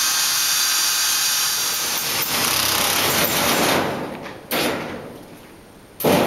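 Electric drill cutting a 2.5-inch hole through a sheet-metal duct plenum: a loud, steady grinding whir that dies away about four seconds in as the drill stops. Two sharp knocks follow near the end, the second one the loudest.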